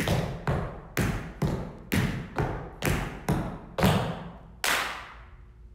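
Tap shoes striking a studio floor as two dancers dance dig heels in unison. Each is a ball-of-foot dig followed by a heel drop, heard as paired taps about once a second. The phrase ends with a stamp near the end that rings out the longest.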